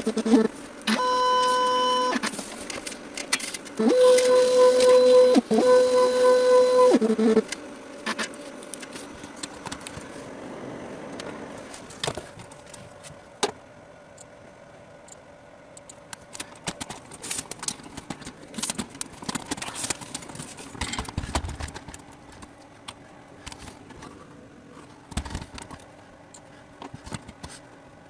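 Vinyl cutter's motors whining at one steady pitch in several stretches that start and stop abruptly as it moves and cuts, followed by quieter scattered clicks and knocks of handling in the workshop.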